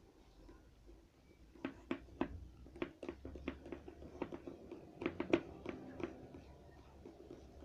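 Slime-kit mixture being stirred in a small container: irregular light clicks and taps against the container, starting about one and a half seconds in.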